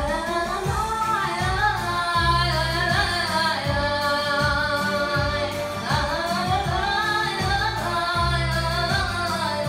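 A young girl sings a song solo into a microphone, holding long notes, over instrumental accompaniment with a low, pulsing bass line.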